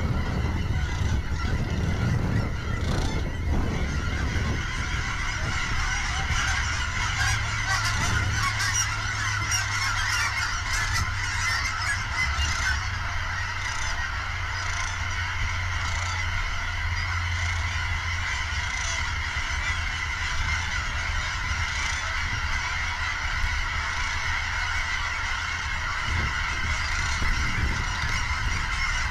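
A large flock of sandhill cranes calling together in a dense, continuous chorus: deep rolling calls of adults mixed with the high whistles of the young colts, over a low steady rumble.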